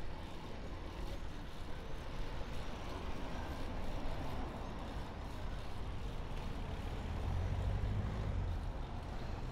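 Steady city road traffic heard from a moving bicycle: cars running in the lanes alongside, a continuous wash of engine and tyre noise, with a low rumble that swells about seven seconds in.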